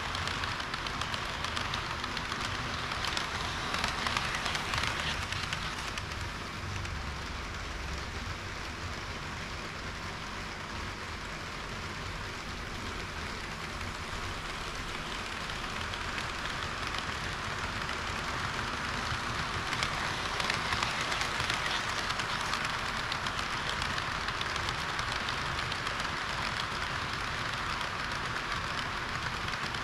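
HO-scale model train running along the track: a steady rolling hiss and rumble of small metal wheels on rails, growing louder twice, a few seconds in and again past the middle.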